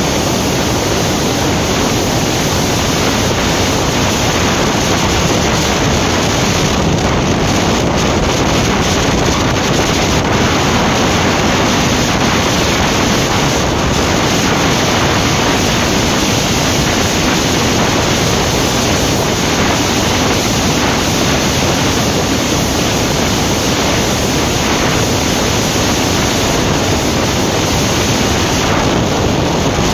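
Loud, steady wind rush on the microphone of a motorcycle cruising at about 100 km/h in sixth gear, with no engine note standing out from it.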